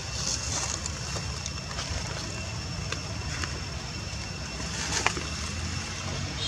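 Steady low wind rumble on the microphone, with a few soft clicks and rustles of dry leaves as a baby monkey moves over them, the sharpest about five seconds in. A faint steady high-pitched tone runs under it.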